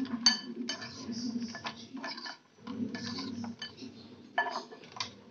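Kitchen utensils clinking and knocking against dishes in irregular sharp strokes. A loud ringing clink comes just after the start, and a couple more come near the end.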